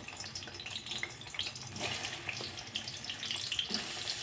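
Paneer cubes sizzling as they fry in hot oil in a kadai: a dense, steady crackle of small pops that gets brighter near the end as more cubes go into the oil.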